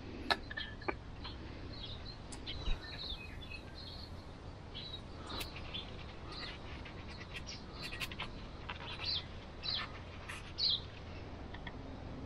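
Birds chirping in short, scattered calls, with a few sharp clicks and light knocks as fuel-filter parts are handled.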